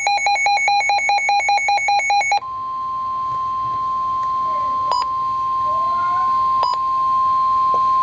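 Rapid, evenly pulsed electronic alert beeping stops about two and a half seconds in and gives way to a single steady alert tone: the NOAA Weather Radio 1050 Hz warning alarm tone, which signals that an emergency warning broadcast follows. Two faint clicks fall during the tone.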